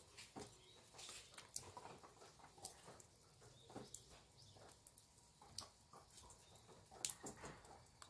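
Faint morning ambience of a Korean beef-cattle farm: scattered irregular ticks and taps over a low, steady background hum.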